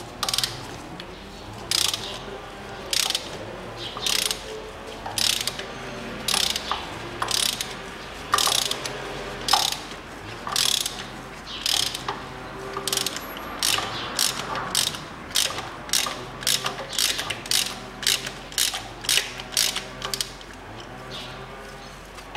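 Ratchet wrench clicking in bursts as it is swung back and forth on a spark plug socket, unscrewing spark plugs from the engine. The bursts come about once a second, then quicken to about twice a second in the second half.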